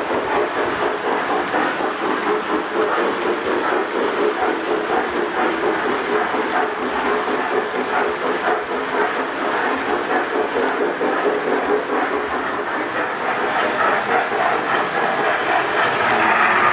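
Lionel O-gauge model train running on three-rail track: a steady rolling rumble and fine clatter of metal wheels on the rails as the passenger cars pass, growing a little louder near the end.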